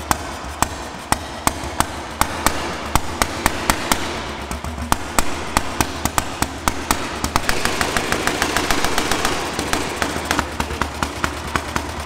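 Early Moto Guzzi 500 horizontal single-cylinder engine running at a slow idle, each firing a separate sharp pop. The beat is about two a second at first and quickens to about five or six a second from around seven or eight seconds in.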